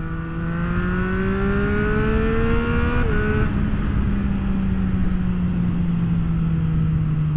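2024 Triumph Street Triple RS's 765 cc inline-three, fitted with an SC Project S1 exhaust, pulling hard under acceleration, its note rising for about three seconds. About three seconds in the revs drop suddenly with a gear change, and the note then holds steady and slowly falls as the bike eases off, with wind rush on the microphone throughout.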